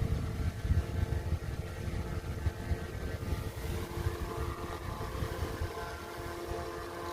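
Restored antique electric fan running: a steady motor hum with several held tones over an uneven low rumble that eases off near the end.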